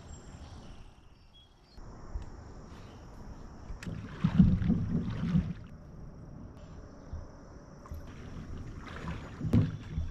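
A person wading in shallow river water beside a plastic kayak: splashing and knocking, loudest about four to five and a half seconds in, with another sharp splash near the end.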